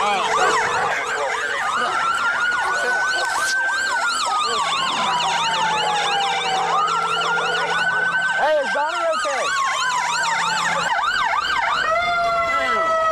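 Several police car sirens sounding together: one on a slow wail that climbs and sinks, others on a fast yelp. They cut off suddenly at the end.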